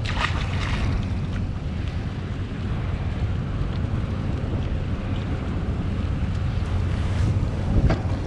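Steady wind buffeting the microphone on a small open boat, over choppy harbour water, with a couple of brief rustles near the start and near the end.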